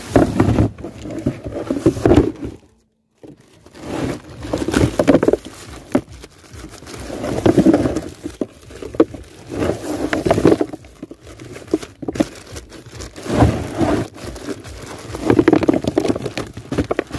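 Plastic bags rustling and seed mud clams clattering against one another as they are shaken and tipped out of the bags into a tub, in repeated uneven bursts.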